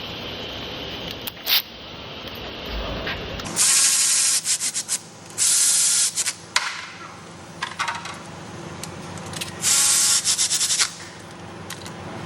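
Tools working on the bolts of a replacement starter motor on a BMW B58 engine: three loud bursts of about a second each, around four, five and a half and ten seconds in, with scattered clicks and taps in between.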